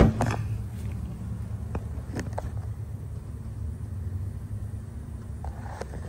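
Ford Freestyle's V6 engine idling with a steady low rumble, with a bump at the start and a few light clicks about two seconds in.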